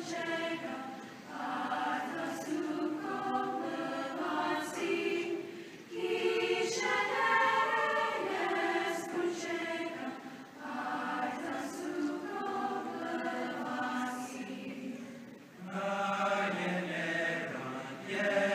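Mixed-voice high school choir singing in sustained chords, in phrases of about four to five seconds separated by brief pauses for breath.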